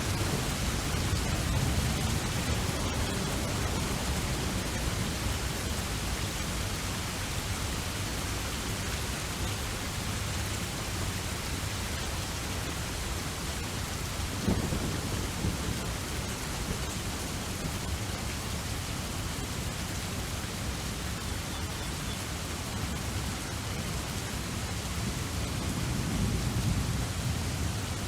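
Steady rain, an even hiss with a low rumble of thunder beneath it. A short, sharper sound stands out about halfway through.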